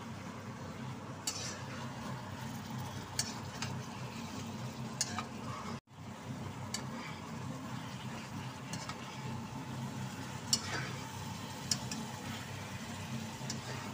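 Strips of meat and vegetables sizzling in oil in a wok while a metal spatula stirs and scrapes them, with scattered clicks of the spatula against the pan. The sound cuts out for an instant about six seconds in.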